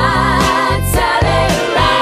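Background music: a singer holding wavering notes over a steady beat.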